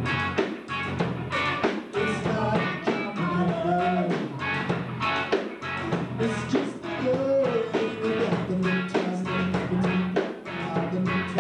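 Live rock band playing: drums, bass guitar and electric guitar, with a steady beat.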